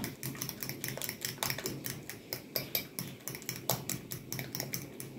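A metal fork beating mashed banana and egg in a glass bowl, clinking against the glass several times a second in a quick, steady rhythm.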